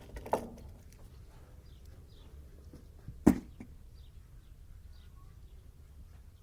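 A single sharp click about three seconds in, over low steady background noise with a few faint, high bird chirps.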